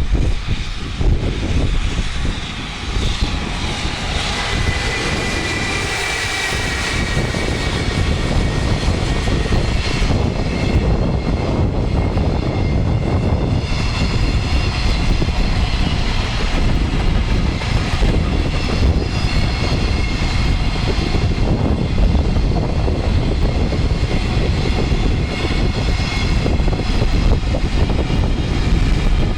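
A train passing close by on the Tokaido Main Line: a steady, loud rumble of wheels on rails through the whole stretch, with a thin whine that falls slightly in pitch about five seconds in.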